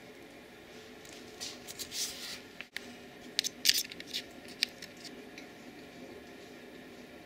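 A Bengal cat's paws and claws scuffing the carpeted perch of a cat tree. Short scratchy rustles come about a second and a half in, then a quick cluster of sharp clicks in the middle, over faint room hum.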